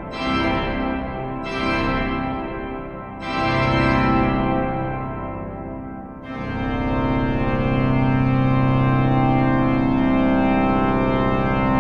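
Pipe organ playing loud full chords, each one breaking off and ringing on in a long echo, then a long held chord from about six seconds in.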